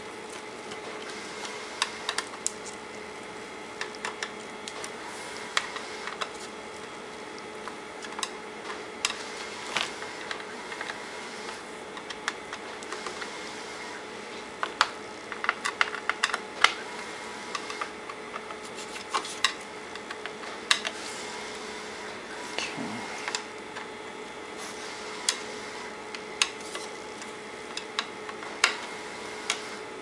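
Irregular small clicks and taps of a hand screwdriver driving small screws into the plastic case of an Akai MPK Mini MIDI keyboard, bunched into quick runs at times, over a steady hum.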